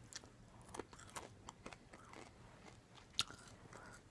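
A person chewing crunchy Parmesan garlic popcorn kernels: faint, irregular crunches, with one sharper crunch about three seconds in.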